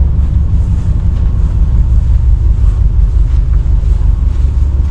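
Loud, steady low rumble aboard a ship, with no break or change.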